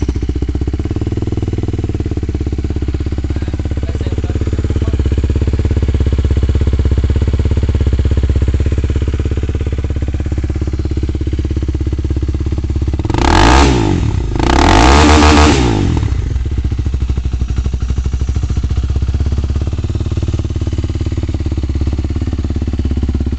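Honda CB 300R's air-cooled single-cylinder engine idling through an aftermarket sport exhaust, just after starting. Two short blips of the throttle just past the middle rev it up briefly before it settles back to idle.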